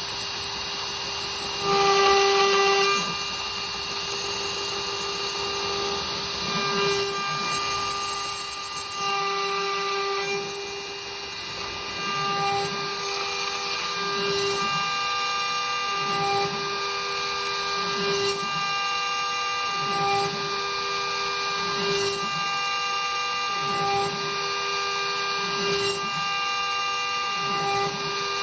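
CNC router spindle whining steadily as its cutter mills aluminum. The cut swells and shifts in pitch in a regular cycle about every two seconds.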